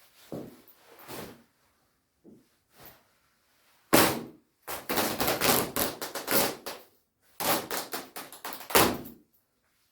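Shiny nylon down jacket being handled and ripped: a sharp knock about four seconds in, then two long runs of loud rustling and tearing noise.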